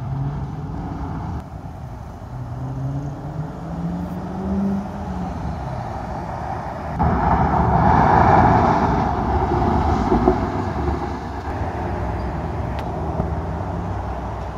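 Dodge Challenger 392's 6.4-litre HEMI V8 accelerating hard, its engine note climbing in pitch. It passes close by, loudest about eight seconds in, then fades away over steady street traffic.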